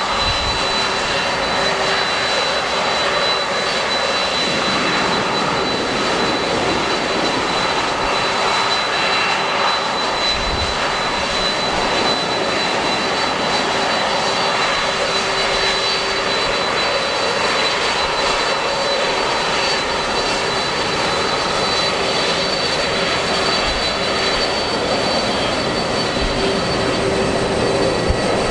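Airliner engines running with a steady, loud roar and a high whine held throughout.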